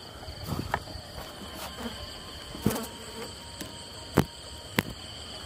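Crickets trilling steadily in a high, even drone, broken by four sharp clicks or knocks. The loudest knock comes about four seconds in.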